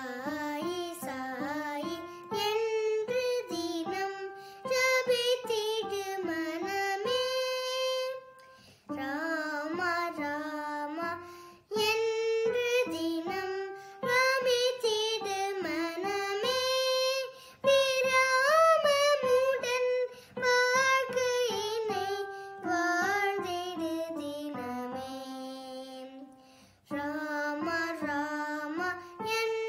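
A young girl singing a melody with her own electronic keyboard accompaniment, in phrases of three to five seconds with short breaths between them; her voice slides and bends between notes.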